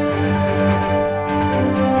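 Intro theme music, with sustained held notes over a steady bass line.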